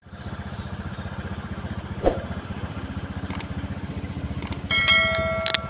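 Motor scooter engine idling steadily with a quick even pulse. There is a knock about two seconds in, a few light clicks, and a louder steady ringing tone about three-quarters of the way through.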